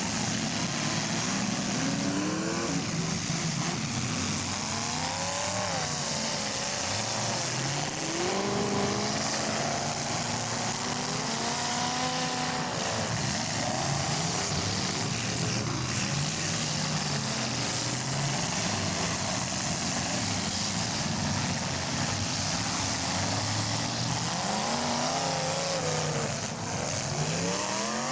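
Engines of several full-size demolition derby cars revving at once, their pitches rising and falling as they accelerate and back off, over a steady hiss.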